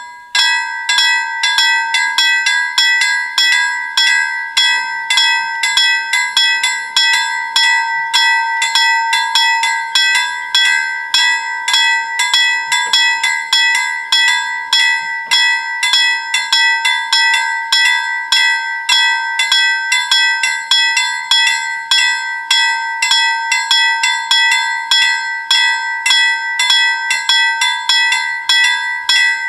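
Level crossing warning bells start ringing abruptly in rapid, evenly spaced strokes and keep ringing steadily. They signal an approaching train while the barriers come down.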